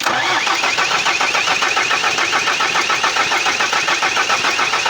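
Starter motor cranking the 2007 Ford Ranger's 2.5-litre four-cylinder diesel at a steady, even rhythm without the engine firing: a cranking no-start, which the mechanic traces to diesel not reaching the injectors.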